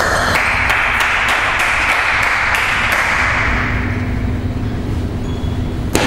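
Table tennis ball clicking off bats and table during a rally, with a strong hit near the end. Under it runs a loud, steady rushing noise that fades away after about four seconds.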